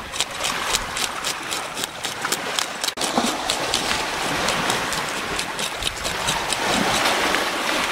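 A metal fish scaler scraping the scales off a parrotfish in quick, repeated strokes that give a rapid run of sharp ticks, over the steady wash of water lapping the shore.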